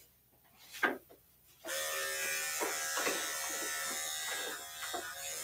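Electric dog-grooming clippers switched on after a sharp click, then running with a steady hum as they are worked over a cocker spaniel's coat.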